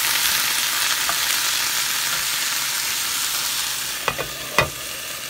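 Bok choy sizzling in a frying pan with a splash of water as it is stirred with a wooden spoon. The sizzle eases about four seconds in, followed by two sharp knocks, the second louder.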